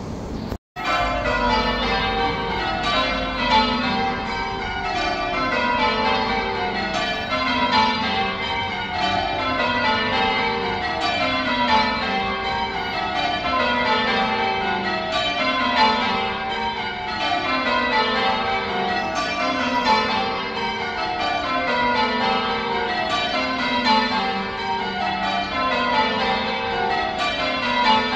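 Church bells ringing full circle in turn, each row of strikes stepping down in pitch from the highest bell to the lowest, about one row every two seconds. The sound drops out briefly under a second in.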